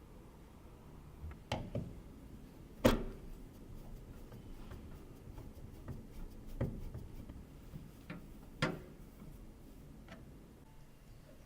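Scattered clicks and knocks of computer parts being handled and fitted, about half a dozen separate sharp strikes with the loudest about three seconds in.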